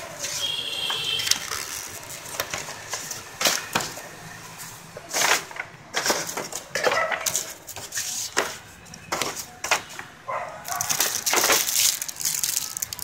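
Unboxing handling noise: a paper user's guide and plastic-wrapped accessories rustled, crinkled and set down on a table in irregular clicks and knocks, with a denser stretch of plastic crinkling near the end as the remote control in its plastic sleeve is picked up.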